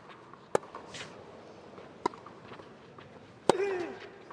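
Tennis ball struck by rackets in a baseline rally: three sharp hits about a second and a half apart, the last and loudest with a player's short grunt.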